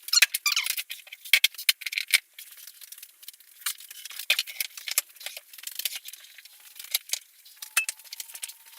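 Hand work on an oak slab's surface, rubbing at marks in the wood: short, irregular light scratches and small clicks.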